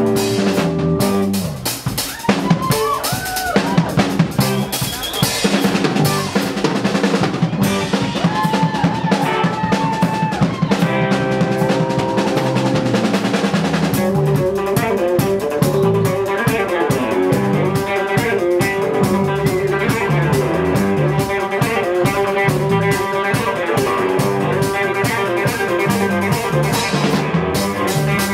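Live rock band playing an instrumental break without vocals: lead guitar notes that bend in pitch over drums and bass, with the playing growing denser and more rhythmic about halfway through.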